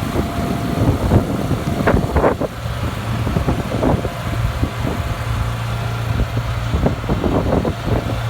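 Gas engine of a portable concrete mixer running its hydraulics while the raised drum turns to discharge, with scattered knocks and clanks from the machine. A steady low hum sets in about two and a half seconds in.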